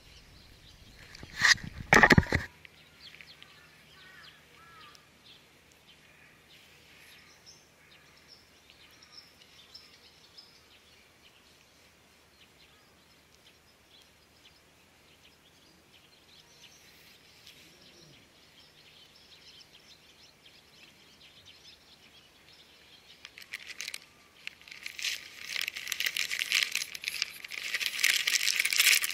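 A plastic snack packet crinkling and rustling loudly through the last five or six seconds. Before that, quiet open-air ambience with faint bird chirps, opened by a couple of sharp knocks about two seconds in.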